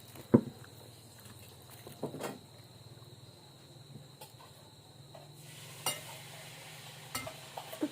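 A few short clinks and scrapes of a spoon on a plate during a meal: one sharp clink about a third of a second in, a couple around two seconds, and lighter ones near six and seven seconds.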